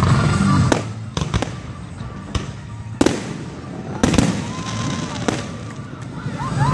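Aerial fireworks bursting overhead: a string of sharp bangs and crackles, the strongest about three and four seconds in.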